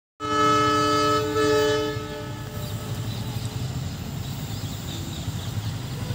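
Indian Railways locomotive horn sounding a loud chord in two blasts, the first about a second long and the second shorter and fading out by about two and a half seconds in. A steady low rumble of the approaching train follows.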